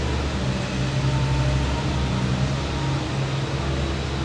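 A steady low mechanical hum, like a motor running in the background.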